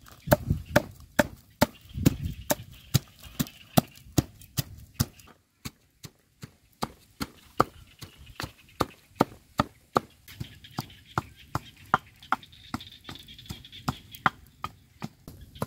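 Wooden pestle pounding chilies and garlic in a wooden mortar: a steady run of sharp knocks, about two to three a second, with a short pause about five seconds in.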